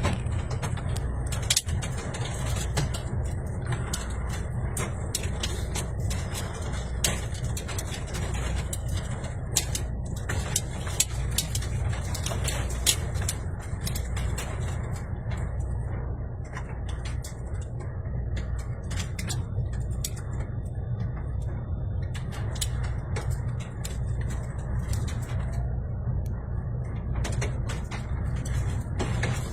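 Steady low rumble of strong wind on the microphone, with scattered sharp clicks and knocks.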